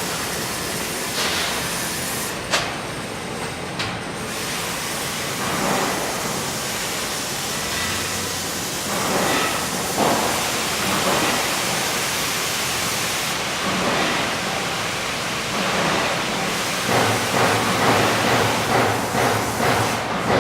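Robotic welding arc of a Lincoln Electric System 40 cell hissing steadily as it lays a weld, with a short break and a couple of sharp clicks a few seconds in. Near the end the sound pulses about twice a second.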